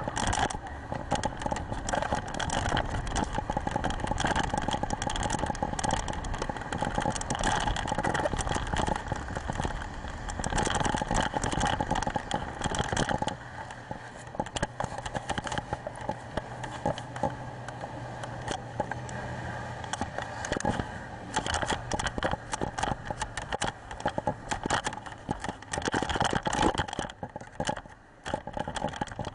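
Tour speedboat's engine running at speed on the river, mixed with heavy wind buffeting on the microphone and water rushing past the hull. The steady engine drone is clearest in the middle, where the rush eases for a few seconds.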